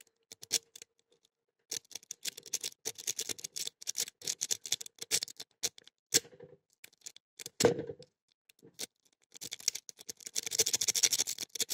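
Lock pick rake scraped rapidly in and out of a Blossom padlock's keyway, the pins giving quick metallic clicking and scratching in two spells, with a single heavier knock about seven and a half seconds in.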